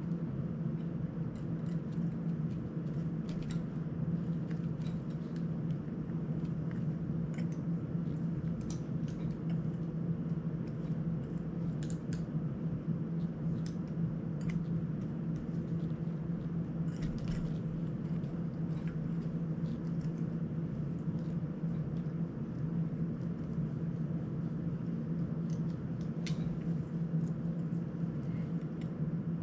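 Scattered small clicks and ticks of hands and small tools handling the parts of a GEPRC CineLog 35 cinewhoop drone during repair, over a constant low hum.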